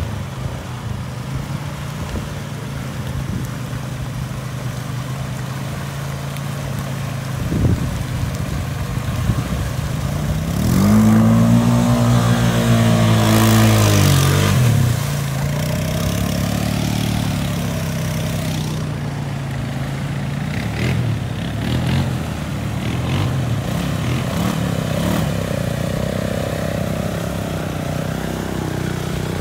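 ATV engine running as the quad wades through shallow water. About ten seconds in it passes close by and gets louder, its pitch rising and then falling, before settling back to a steady run.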